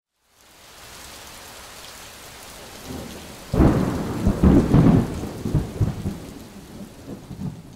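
Rain-and-thunder sound effect: a steady hiss of rain, then about three and a half seconds in a sudden loud clap of thunder that rumbles on in several swells and slowly fades away.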